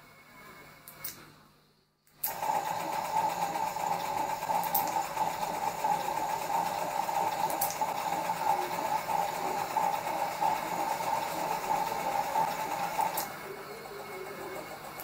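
Timberkits wooden automata running, their mechanisms giving a steady whirring whine. The whirr starts abruptly about two seconds in and stops near the end.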